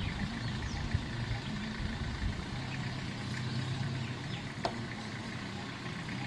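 Vehicle engine idling steadily with a low hum, with a single faint click about four and a half seconds in.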